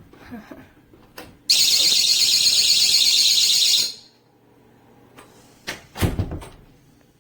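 GE Personal Security window/door alarm sensor sounding its alarm: a loud, high-pitched, rapidly warbling siren that starts about a second and a half in and cuts off after about two and a half seconds. A thump and rustling follow about six seconds in.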